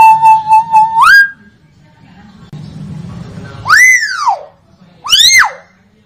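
Common hill myna calling: a held note in quick pulses that leaps up in pitch about a second in, then two loud whistles that each rise and fall, the second shorter.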